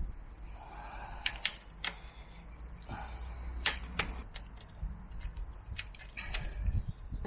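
Scattered light clicks and taps of gloved hands handling the metal frame and swing-arm pivot area of a motorcycle, about eight irregular clicks over a low rumble.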